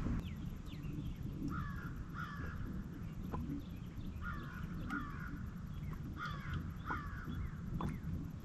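A bird calling outdoors with short, harsh calls in three pairs, a few seconds apart.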